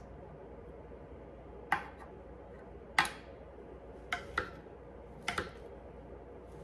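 Chef's knife dicing summer sausage on a stone cutting board: six sharp knocks of the blade against the board, irregularly spaced, the later ones in quick pairs.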